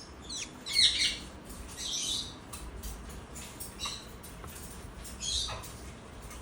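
Pet caique parrots squawking and chirping in a few short, high calls. The loudest calls come in the first second, and near the end one call slides down in pitch.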